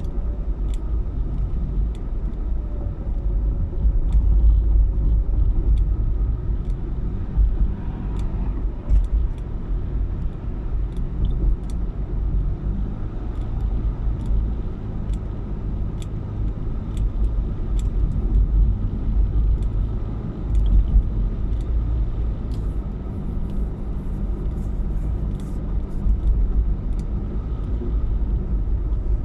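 A car driving, with a steady low road and engine rumble.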